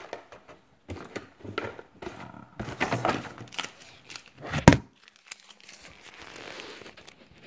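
Plastic packaging crinkling and rustling, with light handling knocks, as ceramic knives are unpacked. A little past halfway comes one sharp knock, the loudest sound, as the phone filming it is dropped, followed by a faint steady hiss.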